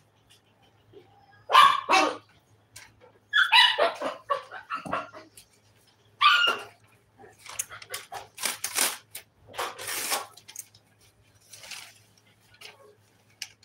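A dog barking in several short bursts, followed by a string of brief noisy sounds and clicks.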